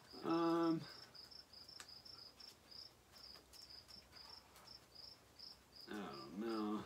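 A cricket chirping steadily, about four short high chirps a second. A short hummed voice sound comes near the start, and voice sounds come again near the end.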